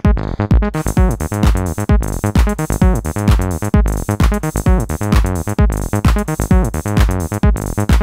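Acid techno pattern from a Roland TB-03 bass line synthesizer and a Roland TR-06 drum machine at 130 BPM: a steady kick about twice a second under a busy, filter-swept synth bass line. Hi-hats come in just under a second in.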